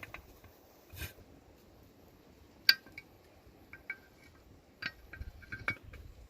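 A few sharp metallic clinks spaced a second or two apart, the loudest a little under three seconds in, with faint lighter ticks between them.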